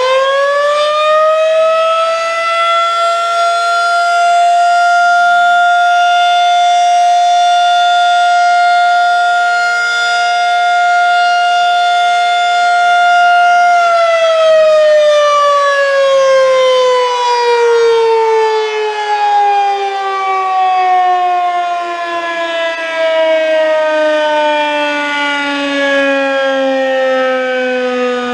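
Federal Signal 2001-SRNB electromechanical tsunami siren sounding its short test alert: it finishes winding up in the first couple of seconds and holds one steady tone. About halfway through it cuts off power and the pitch slowly falls as it winds down.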